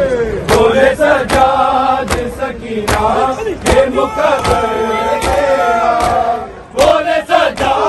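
Crowd of men chanting a noha together, with sharp chest-beating strikes (matam) in time with it, a little faster than one a second. The chant and strikes drop away briefly near the end, then start again.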